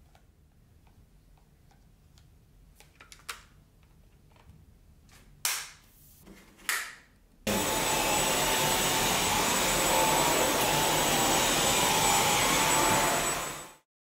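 Faint handling clicks and two short whooshes, then a Dyson cordless stick vacuum switches on about seven seconds in and runs steadily with a high whine before cutting off suddenly near the end. The motor runs evenly rather than pulsing, the sign that airflow through the machine is clear.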